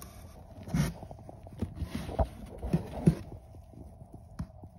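A hand rummaging through damp worm bedding: soft rustling and handling noise, broken by a few irregular short knocks and thumps.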